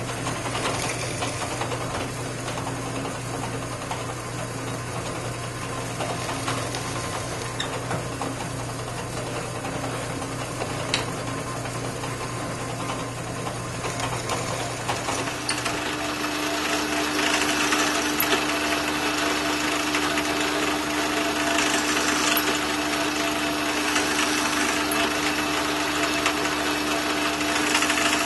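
Drill press running while a quarter-inch brad point bit bores into wood, drilled halfway through from one side so that the wood does not tear out. The steady motor hum changes pitch about sixteen seconds in.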